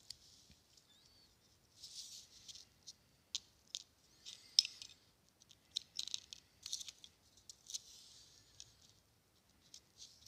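Plastic pin-header strips being pushed by hand onto an Arduino Nano's header pins: faint scattered clicks and short scratchy rustles.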